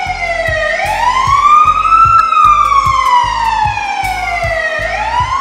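A wailing siren: a quick rise in pitch, then a long slow fall, rising again near the end. A steady low beat of background music runs under it.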